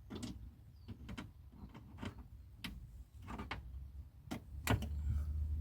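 Irregular sharp clicks and knocks of a grabber pick-up tool working inside a car door cavity and catching a loose part, with the loudest two knocks near the end.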